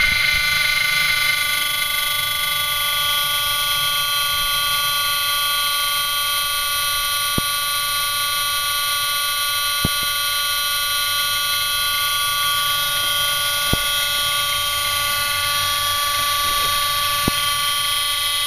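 Electric-motor-driven hydraulic gear pump running with a steady whine of many tones, under load with the oil forced over the relief valve at around 200 bar, working normally on ISO 32 mineral oil. Slightly louder for the first second or so, with a few light clicks scattered through.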